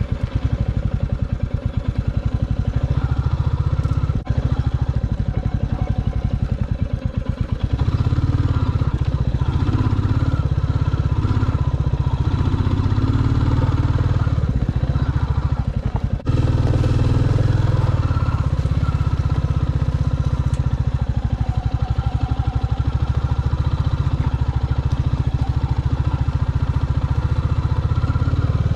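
Royal Enfield Classic 350 Reborn's single-cylinder engine running steadily as the motorcycle is ridden along a dirt track, with two brief dips in sound about 4 and 16 seconds in.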